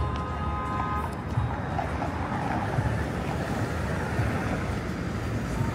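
Outdoor city street ambience: a steady low rumble of traffic and wind on the microphone, with faint distant voices. A faint high tone stops about a second in.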